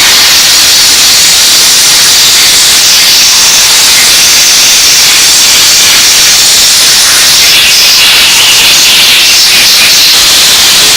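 Minimax water-fed steam cleaner jetting steam from its nozzle onto a part: a loud, steady hiss.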